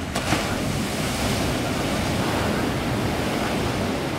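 Heavy storm surf from a hurricane's swell breaking and washing up a sandy beach: a dense, steady rush of water with one louder surge just after the start. Wind buffets the microphone.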